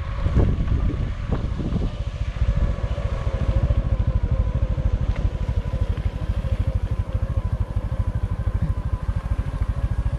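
Vehicle engine running steadily while driving, with a few low thumps in the first two seconds.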